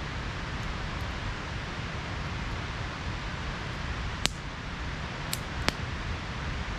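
Small campfire of pine twigs and needles crackling: three sharp pops over a steady low hiss, the pops past the middle.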